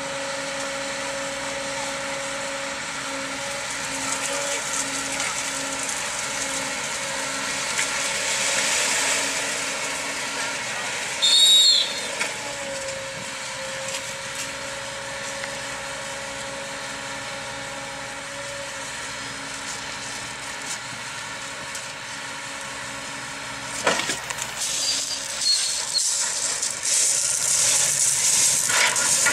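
Diesel engines of a Shannon-class lifeboat and its tracked launch-and-recovery tractor running steadily, a continuous mechanical drone with a held hum. About eleven seconds in there is a brief loud high-pitched sound, and after a sharp knock near the end the running grows louder and noisier.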